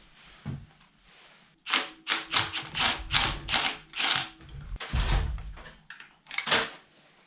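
Hand tools and loose metal engine parts clinking and knocking during an engine teardown: a quick run of sharp clicks and taps, with a heavier thump about five seconds in.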